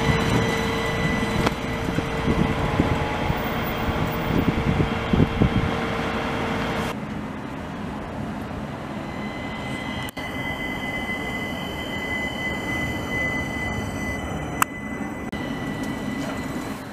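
Stadler Citylink tram-trains running on the line. First a tram passes close by with a loud rumble and a steady hum. After an abrupt change about seven seconds in, a quieter tram approaches with a steady high whine, and there is a single sharp click near the end.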